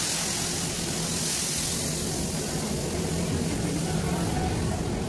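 Steady whooshing machine noise with a low hum underneath, from the roasting and air-handling equipment of a working coffee roastery. There are no distinct knocks or events.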